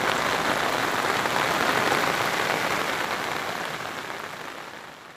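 Heavy monsoon rain and water, a steady hiss that fades away over the second half.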